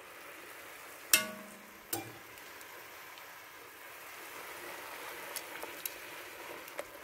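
White-wine and shallot sauce simmering with a quiet, steady sizzle in an enamelled cast-iron casserole as chicken escalopes are laid back in with metal tongs. There is a sharp, ringing clink of the tongs against the pot about a second in, a lighter knock just before two seconds, and a few soft ticks later on.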